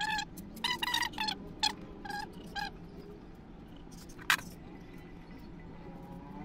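A rag wiping the bare hubs of bicycle wheels, faint rubbing under a run of short high chirps in the first few seconds and one sharp click about four seconds in.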